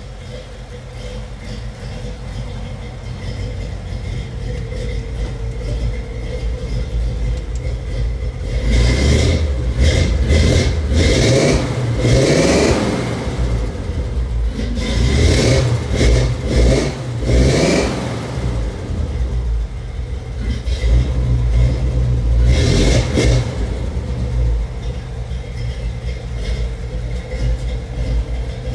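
Stock Ford 8BA flathead V8 running through 2.5-inch Flowmaster 40 series mufflers, idling and then revved several times in quick succession from about a third of the way in, with one more rev later.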